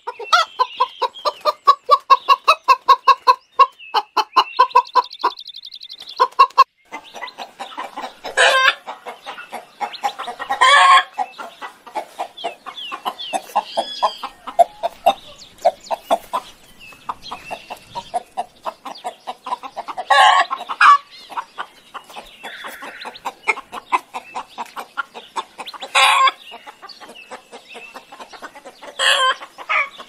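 Fowl calling: a fast run of short, harsh repeated notes, about five a second, for the first six seconds, then scattered clucking calls with a handful of louder calls spread through the rest.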